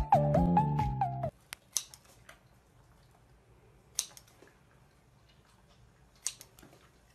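Upbeat music with a repeating melody, cut off abruptly about a second in. Then come a few sharp snips of scissors cutting through food, the loudest about two seconds apart.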